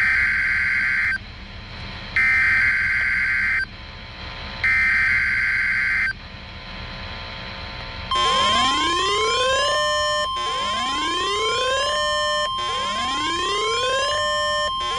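Emergency Alert System weekly-test broadcast on NOAA Weather Radio: three short screeching digital header bursts, then the steady 1050 Hz warning alarm tone. About eight seconds in, a rising siren-like sweep starts repeating over the tone roughly every two seconds.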